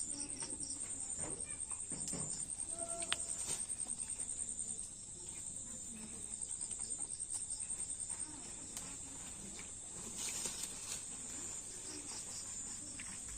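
A steady, high-pitched insect trill of fast, even pulses that fades about two-thirds of the way through, over faint low rustling.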